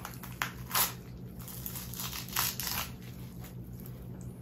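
A perch being pulled apart by hand after its spine has been cut through: a few short wet tearing and crackling rasps over a faint, steady low hum.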